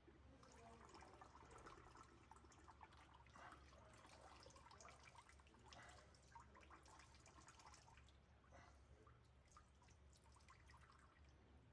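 Faint trickling and irregular dripping of liquid coolant draining out of a power supply unit's coolant connector into a container.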